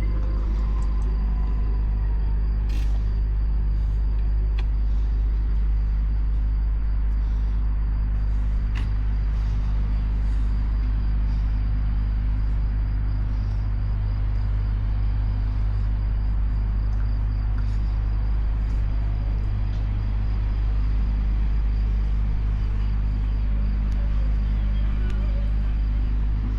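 A large ship's engines running steadily at berth: a constant low rumble and hum with several steady low tones, and a few faint clicks.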